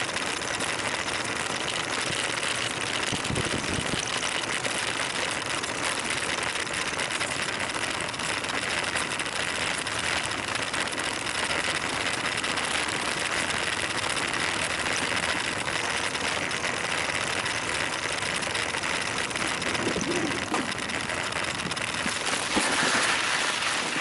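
Steady rushing noise of a bicycle ride: wind over the microphone and tyres rolling on the road.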